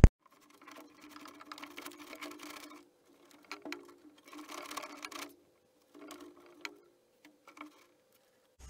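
A wiring loom being pushed and pulled through the bare steel body shell of a classic Mini, heard as faint scraping, rustling and clicking in short spells with pauses between them.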